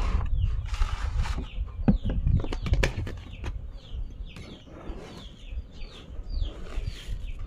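Birds calling in many short, falling chirps, several a second, over a low rumble, with a few sharp knocks in the first three seconds.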